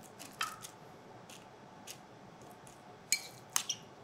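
Metal spoon clicking and scraping against a glass bowl and a glass terrine dish as meat sauce is scooped and pressed down: a few scattered light clinks, then a sharper cluster of three about three seconds in.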